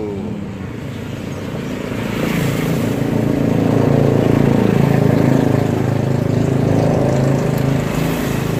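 An engine running steadily, growing louder over the first few seconds and easing off slightly near the end.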